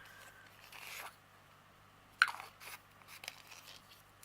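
Faint handling of plastic bead-storage cases: a short rustle swelling just before a second in, then a sharp click a little after two seconds and a few lighter ticks.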